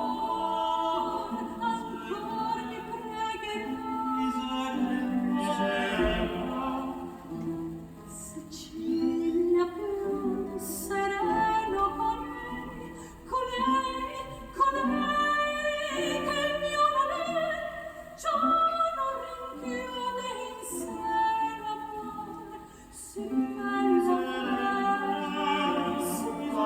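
Music with singing, classical or operatic in style, played through Kenwood CM-7ES compact speakers driven by a Sony STR-DE197 receiver. It runs in long held phrases with short breaks between them.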